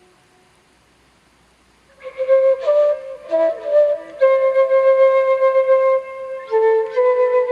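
Solo flute playing a slow melody of long held notes with breathy attacks, entering about two seconds in after a near-silent pause.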